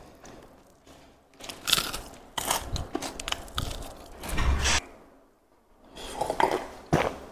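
Close-miked chewing and crunching of fried chicken with rice and crispy sambal, a dense run of crackly bites and chews. It stops briefly, then a few gulps of a drink come near the end.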